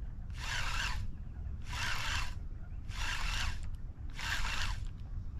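Baitcasting reel cranked in short bursts of about half a second, four times with brief stops between, giving a whirring of the reel's gears: a stop-and-go retrieve of a lipless crankbait.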